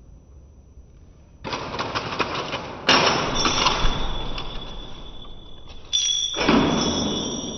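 Mini Cheetah quadruped robot dropped upside down: its electric leg actuators start up with a rattling, clicking whir, then the robot hits the foam mat with a sharp, loud impact. A steady high motor whine follows, and a second loud clatter comes about six seconds in.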